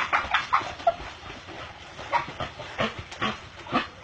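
Dog giving short, sharp barks and yips: a quick run of several in the first second, then more spaced about half a second apart.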